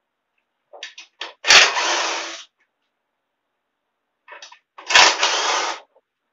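A power tool runs in two bursts of about a second each, each starting with a sharp crack, with a few light clicks just before each burst.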